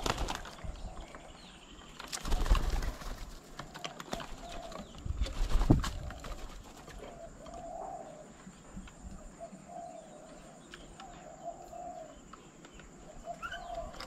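Doves flapping their wings in a short scuffle, in loud bursts at the start, about two seconds in and about five seconds in. After that a dove coos in short repeated phrases.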